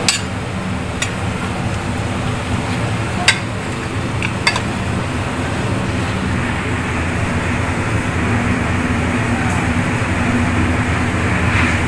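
A steady low mechanical hum, with four sharp metal clinks in the first five seconds from a ladle knocking against stainless-steel cookware.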